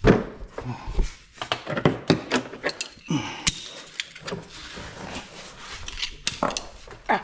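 Scuffling with irregular clicks and knocks as a person crawls under a tractor and handles tools.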